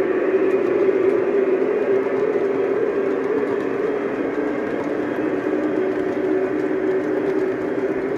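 Loaded coal hopper cars of an O-gauge three-rail model train rolling past on the track, a steady rolling whir of metal wheels on rail.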